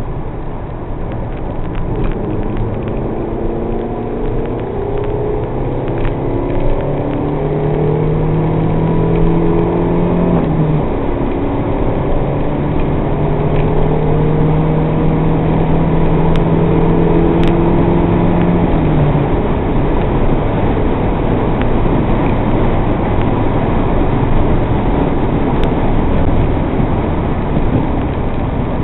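MG TF's mid-mounted four-cylinder engine running hard at track speed, heard from inside the cabin over dense road and wind noise. Its note breaks and changes twice, about eleven and nineteen seconds in.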